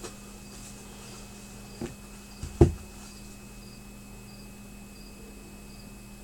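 Steady electrical hum with a faint high chirp repeating a little under twice a second, broken by two short knocks a little before and after two seconds in, the second louder.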